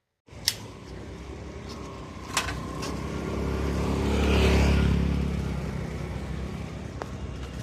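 Road traffic: a motor vehicle's engine passes close, its rumble swelling to a peak midway and then fading. A sharp click comes about half a second in, and a smaller one about two and a half seconds in.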